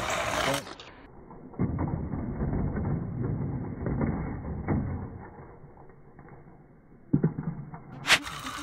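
Small toy monster truck's plastic wheels rolling and rattling along a plastic track as it runs through a banked curve, fading out, followed by a few sharp plastic knocks near the end.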